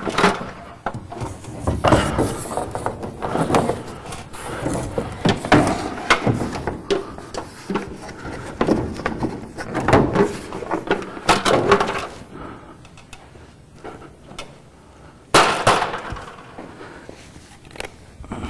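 Irregular knocking, scraping and clattering as a dust cover panel is handled and set down on top of a wooden sauna roof, with one louder bang about fifteen seconds in.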